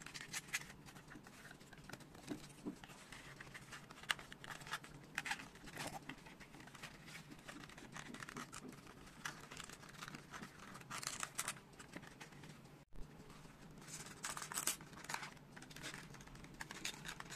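Printed foam-board 3D puzzle pieces being handled and pushed together: a faint, irregular run of scraping, rubbing and small clicking taps as tabs slide into their slots.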